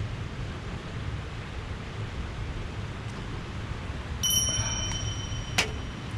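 A metal object clinks and rings briefly with a clear high tone about four seconds in, followed by a single sharp click, over a steady low rumble of wind or flowing water.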